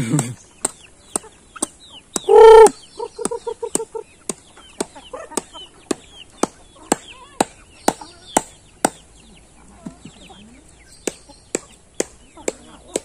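A flock of laying hens clucking, with one loud squawk about two and a half seconds in and a quick run of short clucks just after it. Sharp knocks sound about twice a second throughout.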